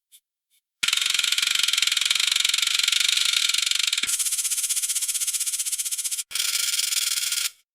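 Spinning mechanism of a rotating factory warning light: a fast, even mechanical rattle starting about a second in. It changes tone about four seconds in, breaks off briefly, then resumes and cuts off near the end.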